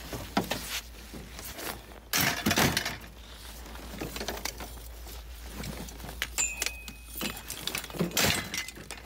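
Scrap bicycle frames and parts clinking, rattling and scraping against each other as they are handled and shifted, with louder bursts of clatter about two seconds in and again near the end.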